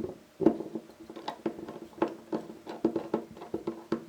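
A hand screwdriver driving screws into a new center latch on a footlocker trunk: a string of irregular clicks, each with a brief ringing.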